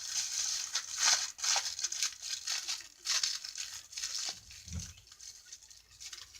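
A plastic bag crinkling as it is handled, in irregular crackles that fade after about four seconds, with a soft low thump about five seconds in.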